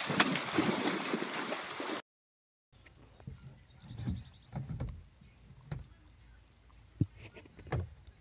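Dogs splashing as they run into a lake: a loud, noisy rush of splashing water. It cuts off after about two seconds, and after a short gap there is a steady high hiss with scattered dull knocks.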